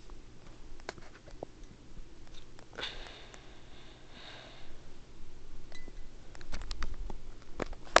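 52-inch Hunter Berkeley ceiling fan running on high speed with a steady low hum, with scattered small clicks. There are two short hissy noises about three and four seconds in and a low rumble near the end.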